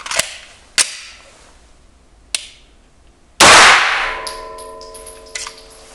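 A single unsuppressed shot from a 9 mm HK USP 9SD pistol, about halfway through, with a long ringing decay, preceded by a few light clicks. The one bang is two overlapping ones: the sudden release of chamber pressure at the muzzle and the crack of the supersonic bullet.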